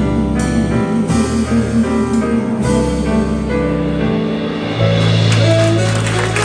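Live band playing the instrumental closing bars of a slow ballad, with sustained bass notes and chords. Audience applause starts to come in near the end.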